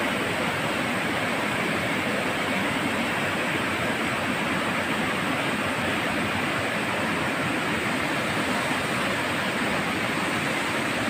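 Shallow, fast river water rushing and churning steadily over a rocky bed.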